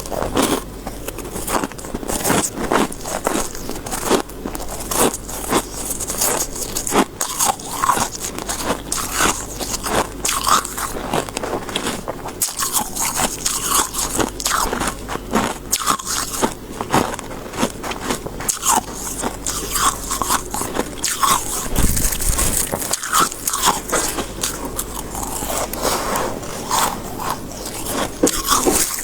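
Close-miked biting and chewing of soft, snowy freezer-frost ice: a steady run of many quick, dense crunches.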